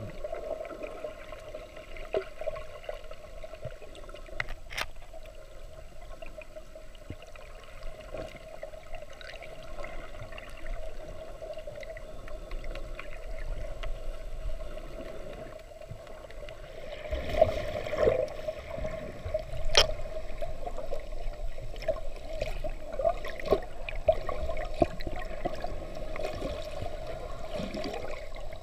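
Water sloshing and bubbling, heard underwater and muffled through a camera's waterproof housing, over a steady hum. A few sharp knocks stand out, and the water noise grows louder and busier a little past halfway.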